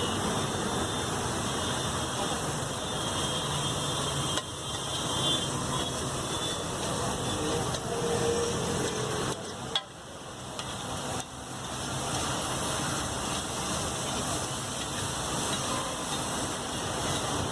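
Egg pulao frying on a large iron griddle (tawa): a steady sizzling hiss with an occasional knock and scrape of a flat metal spatula, over a continuous wash of street traffic noise.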